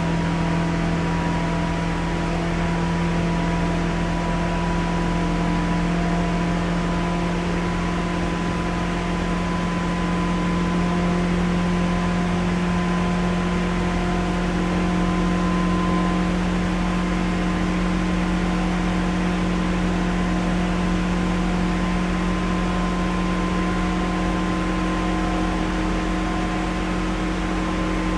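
KRL commuter electric train running at a steady pace: an even rumble of running noise with a constant hum made of several steady tones.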